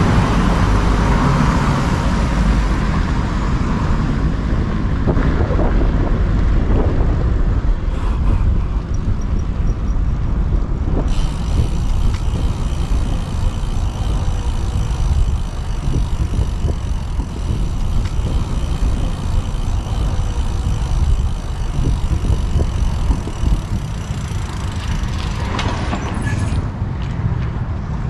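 Wind noise on the microphone of a camera riding on a moving bicycle, with tyre and road noise and passing motor traffic. There is a brief louder passing sound near the end.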